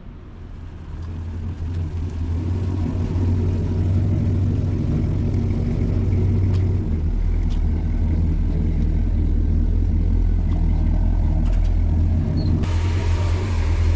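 A motor vehicle's engine running with a steady low rumble, building over the first couple of seconds. A hiss joins near the end.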